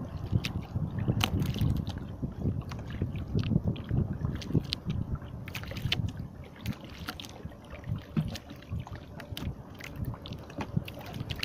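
Sea water lapping and sloshing against the hull of a small jukung outrigger canoe, with wind on the microphone making a steady low rumble and scattered small clicks throughout.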